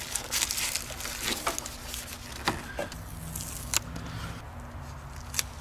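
Rustling and crinkling of plastic wrapping and protective film being peeled off an HID headlight ballast's metal case, with a few sharp ticks.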